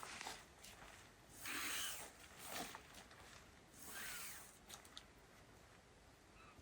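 A bird's faint, harsh scolding calls: three short raspy calls, the last with a slight falling pitch.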